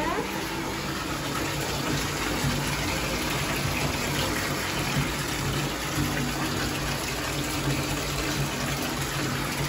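Bathtub faucet running at full flow, water gushing from the spout into a filling tub: a steady rush of water.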